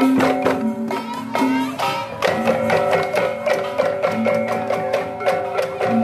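Balinese gamelan music of the kind played in baleganjur processions: fast, steady strikes on tuned metal gongs and cymbals over a drum beat.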